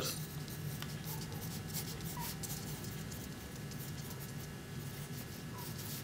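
Pencil scratching on paper in short, faint strokes as labels and lines are written, over a faint steady hum.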